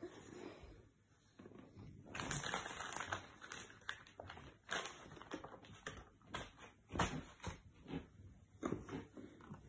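Irregular plastic clicks and taps as a baby handles the toys on a baby walker's tray, starting about two seconds in, with the sharpest tap about seven seconds in.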